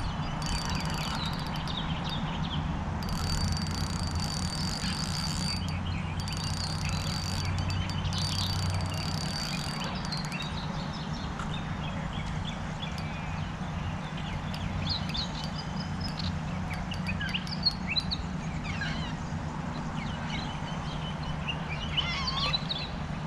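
Small birds chirping here and there over a steady low background hum, with a thin high steady tone in the first half.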